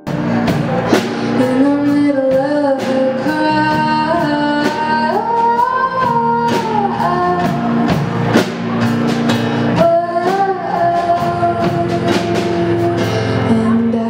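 A song: a woman singing a melody over guitar, with regular strummed or struck beats.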